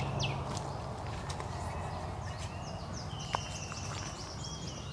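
Birds calling over a steady outdoor background hiss: a quick falling chirp or two, then a run of short high whistled notes, and a single sharp click a little past the middle.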